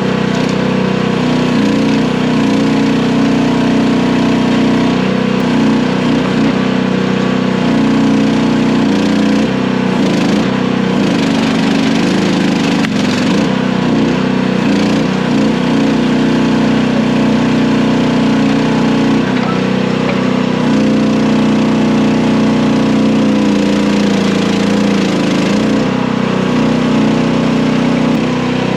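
Mini skid steer engine running steadily at working speed, its pitch dipping and shifting briefly now and then as the machine works.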